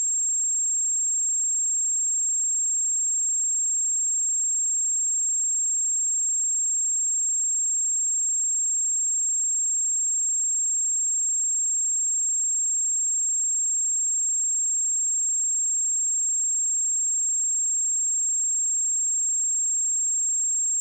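Steady 7491 Hz sine-wave test tone: a single high-pitched pure tone held at constant level.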